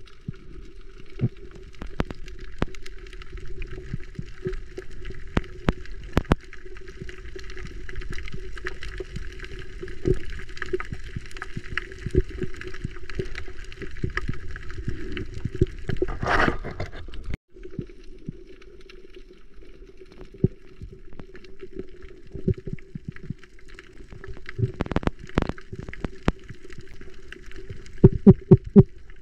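Underwater reef ambience picked up by a submerged camera: scattered sharp clicks and crackles over a steady low hum, with a short burst of noise about sixteen seconds in and the clicks growing denser near the end.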